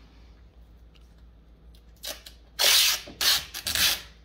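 Masking tape being pulled off its roll in a few quick, crackling rips starting about halfway in, the longest and loudest at about two and a half seconds in.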